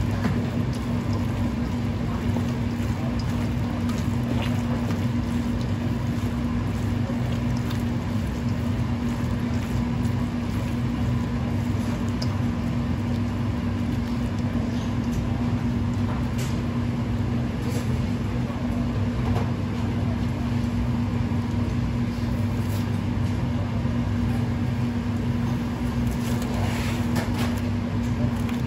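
Steady low mechanical hum of kitchen machinery, unchanging throughout, with faint scattered ticks and rustles.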